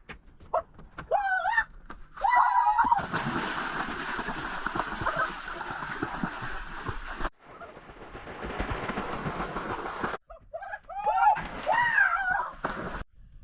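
Water splashing and sloshing in a few short cuts, with brief high, wavering calls at the start and again near the end.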